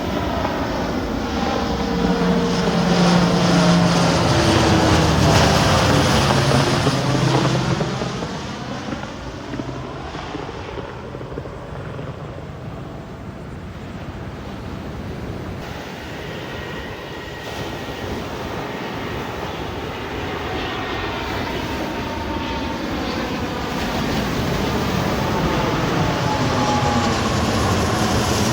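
Airplane passing low overhead: engine noise swells to its loudest a few seconds in, with the pitch of its tones dropping as it goes by, then eases off. Near the end the engine noise builds again.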